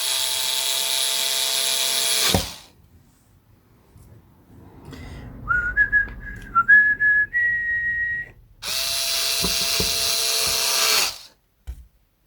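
Electric drill running flat out in two bursts of about two seconds each. Between them it whines at lower speed, its pitch stepping upward in stages.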